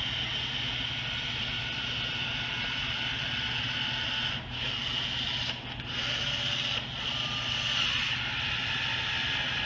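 Cordless caulking gun's motor running steadily as it drives a bead of urethane windshield adhesive, with three short breaks near the middle as the trigger is let off.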